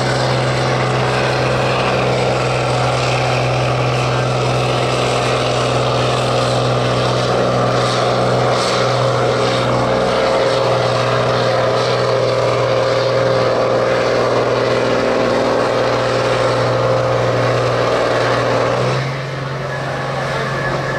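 Case IH Magnum 7240 tractor's diesel engine running flat out under heavy load as it drags a pulling sled, a loud, steady drone. Near the end the engine note drops away as the pull finishes.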